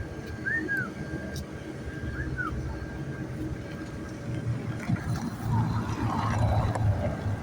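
Low engine rumble that grows louder in the second half, with a short high chirp heard twice early on over a faint steady whine.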